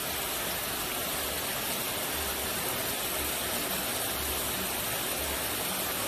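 Heavy artificial rain from a leak-test spray rig pouring onto a car's roof and rear glass: a steady, even hiss of falling water.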